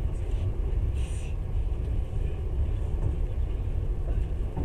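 Moving passenger train heard from inside the carriage: a steady low rumble of wheels and running gear.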